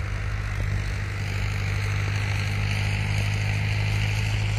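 Tractor engine running steadily with a low, even drone, and a hissing noise that grows a little louder about two seconds in.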